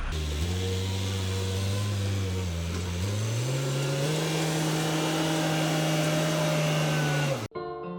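Backhoe engine running, its speed rising about three seconds in and then holding steady. Near the end it cuts off abruptly and gives way to piano music.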